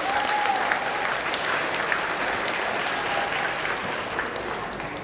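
Audience applauding, a dense spread of clapping that eases off slightly toward the end.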